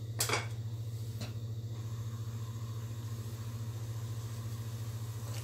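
A steady low hum with a fast, even flutter. A brief clatter comes about a quarter of a second in, and a faint tick about a second in.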